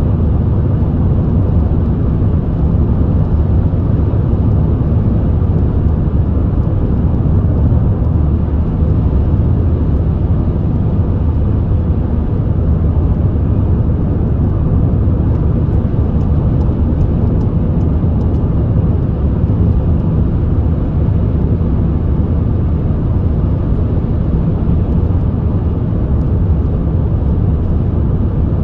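Steady low rumble of a car driving at cruising speed, heard inside the cabin: tyre and road noise mixed with the engine.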